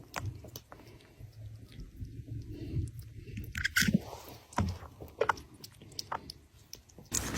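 Chewing: irregular soft crunches and clicks, a few of them louder, the strongest a little before four seconds in.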